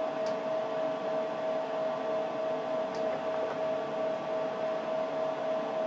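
Cooling fans of an HP 54845A Infiniium oscilloscope running steadily as it boots, an even rush of air with a constant whine. Two faint ticks, one near the start and one about three seconds in.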